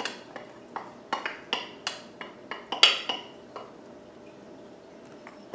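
Wooden spoon knocking and scraping against a bowl as chopped bell pepper is emptied into a slow cooker: a run of irregular clicks and knocks, about three a second, that stops a little past halfway.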